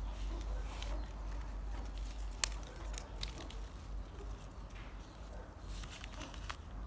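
Handling noise from a potted mango sapling: soft rustling of its black plastic nursery bag and leaves, with scattered sharp clicks, one louder click about two and a half seconds in and a short run of crackling near the end, over a low steady hum.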